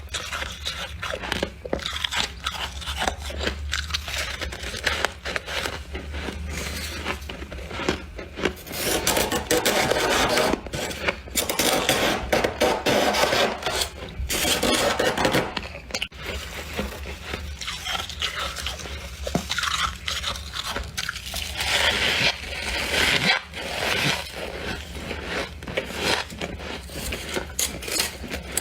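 Squeaky freezer frost being scraped and crunched: a continuous run of dense scraping strokes and crunches, louder in stretches, over a low steady hum.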